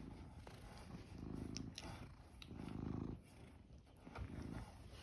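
A cat purring, the purr swelling and fading with each breath, with a few light clicks in between.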